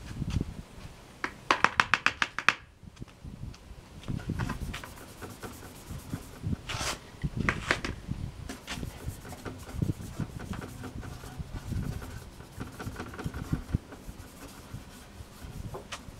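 Hands handling and rubbing the plastic case of a Packard Bell 386 computer. About a second and a half in there is a quick run of about ten clicks or squeaks, followed by scattered rubs, scrapes and light knocks.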